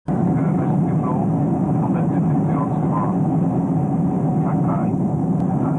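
Steady cabin noise of a jet airliner in flight, the engines and rushing air heard from inside the cabin, with faint voices of passengers talking.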